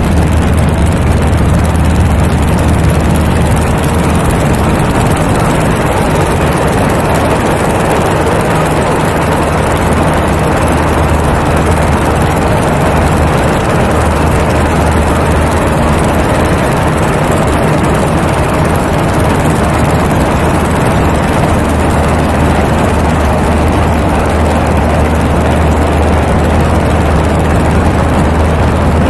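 Aeronca Champ's engine and propeller running steadily in flight, a constant low drone under a broad rush of wind over the outside-mounted camera.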